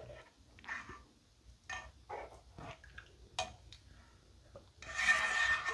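Slotted spatula stirring a thick cream sauce in a metal skillet: soft, scattered scrapes and clicks against the pan, then a longer, louder rustling scrape near the end.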